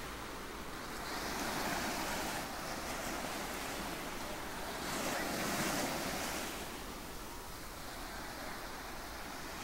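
Ocean surf washing in and out, a steady hiss that swells twice as waves come in, once about two seconds in and again near the middle.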